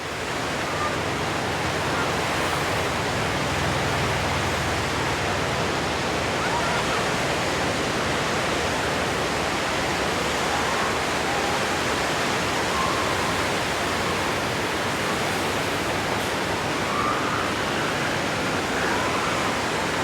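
Steady wash of surf on a beach, with faint seal calls rising through it now and then, more of them near the end.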